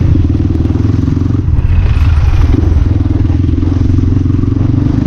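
CX250R motorcycle riding with its exhaust DB killer removed, so the exhaust note is loud and open. The engine eases off briefly about a second and a half in and then pulls again.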